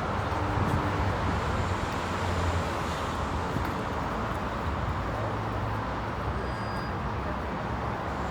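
Street traffic noise: a steady hum of passing cars with a low engine rumble.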